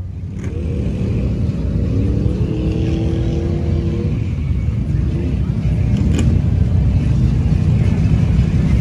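Motor vehicle engine running with a heavy low rumble that grows steadily louder, with a held engine note that rises slightly in pitch over the first few seconds.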